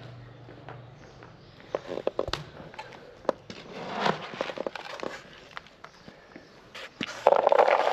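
Dry cat kibble being handled in a plastic bucket: scattered clicks and rustles as it is scooped, then a louder, dense rattling near the end as the pellets are poured out.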